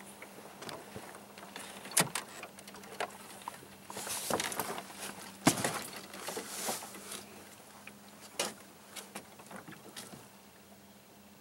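Clicks, knocks and light clatter aboard a small fishing boat under way at trolling speed, over a faint steady hum; two sharp knocks, about 2 s and 5.5 s in, are the loudest.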